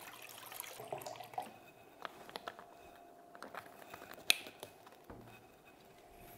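Apple juice pouring from a carton into a measuring jug, then light clicks and taps as the carton and jug are handled, the sharpest click about four seconds in.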